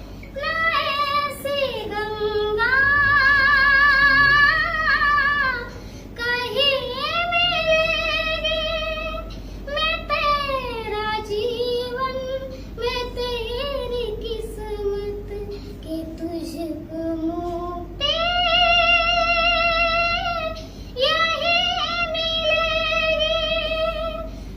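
A young girl singing a Hindi song with no accompaniment, holding long notes with vibrato and ornamented slides, in phrases separated by short breaths.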